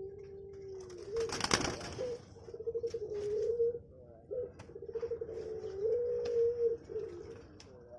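Puter pelong dove cooing over and over: long drawn-out low coos broken by rapid trills. A brief loud rustling noise sounds about a second and a half in.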